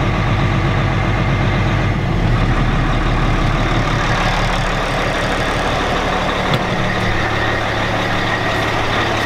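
The Peterbilt semi's Caterpillar six-cylinder turbo diesel idling steadily, left running after a long sit to charge its weak batteries.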